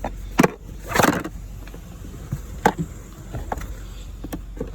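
A few sharp clicks and knocks and a brief rustle over a steady low hum.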